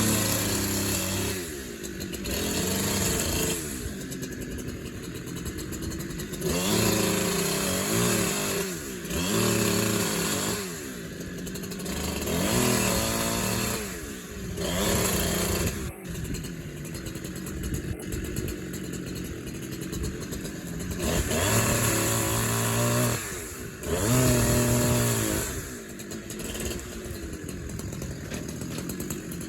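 Two-stroke chainsaw running and being revved repeatedly while cutting brush and small trees: about eight throttle-ups, each a second or two long, between drops back toward idle.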